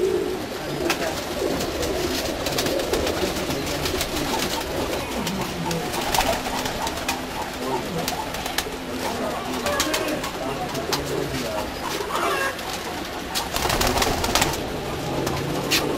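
Domestic pigeons cooing: low, wavering coos that come and go throughout, with scattered sharp clicks.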